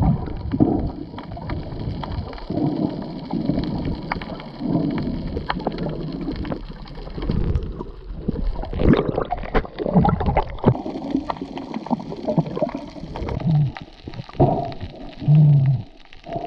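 Muffled underwater gurgling and sloshing of sea water, heard through an action camera submerged while snorkelling, with uneven low surges every second or two.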